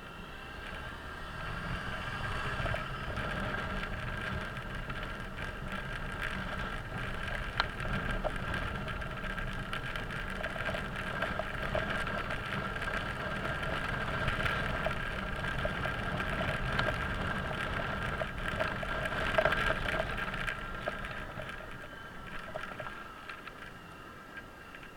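Suzuki Burgman 650 maxi-scooter's parallel-twin engine running as it rides along, with road and wind noise. It picks up about two seconds in and eases off near the end as the scooter slows.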